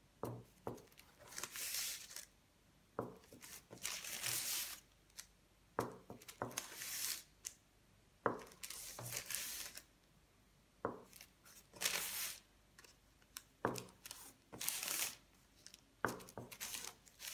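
Kitchen knife cutting through layered dough on parchment paper over a wooden board. Each stroke is a sharp tap of the blade, then a rustling, scraping slice about a second later, repeated about every two and a half seconds.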